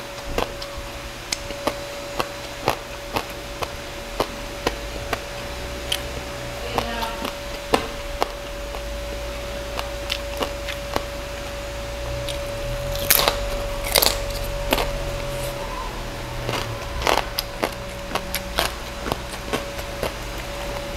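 Close-up chewing of crispy lechon liempo (roast pork belly), its crackling skin crunching in sharp bites about once a second, with two louder crunches a little past halfway. A faint steady hum underneath.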